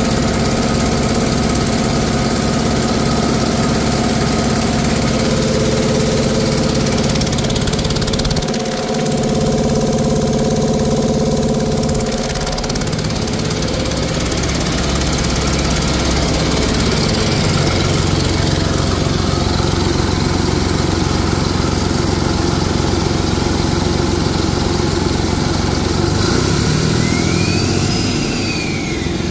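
Mercedes-Benz OM926LA 7.2-litre turbocharged inline-six diesel engine running steadily at idle, heard close to its open oil filler at first. Its tone shifts a few times, and near the end a brief whistle rises and falls.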